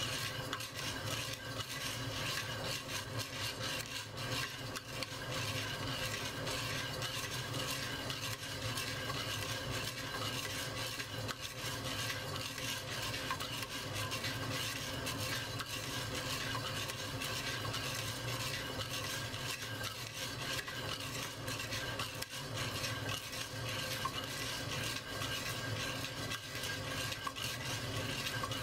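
Coffee beans being stirred in a clay roasting pot: a steady, dense rattle and rustle of many small ticks that keeps on without a break.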